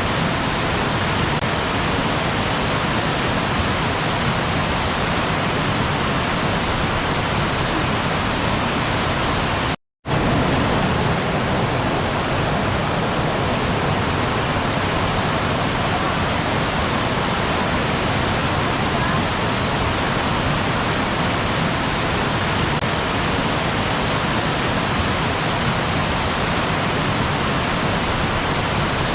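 Waterfall: a steady, dense rush of falling water with no music. It cuts to silence for a split second about ten seconds in, then resumes, as at the splice of a looped recording.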